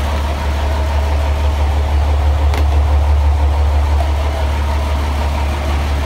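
Fishing boat's engine running steadily, a deep low drone, with one sharp click about two and a half seconds in.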